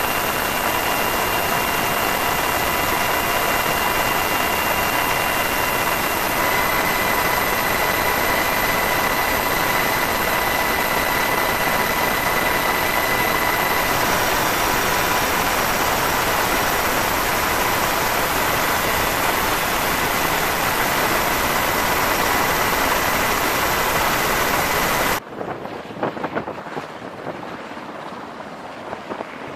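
Helicopter turbine engines and rotor heard from inside the cabin: a steady, loud noise with a high whine held over it. About 25 seconds in it cuts off suddenly to a much quieter, wind-blown sound.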